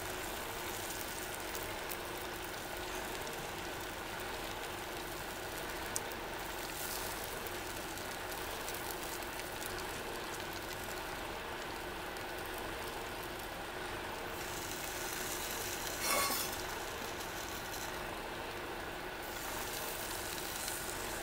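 Takoyaki sizzling in a small frying pan over a gas-canister camp stove turned down to its lowest flame, a steady even hiss. A single light click about six seconds in and a brief louder sound about sixteen seconds in.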